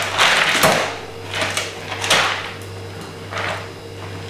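A cotton cloth rustling against a wire cage as it is pulled and smoothed over the top, in about four short swishes.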